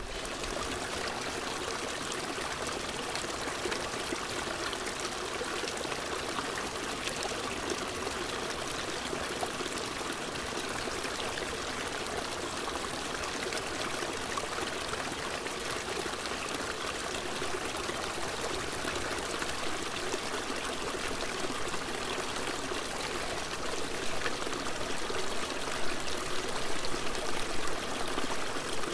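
Small mountain stream running over mossy rocks, a steady rush of water that grows louder and more uneven in the last few seconds.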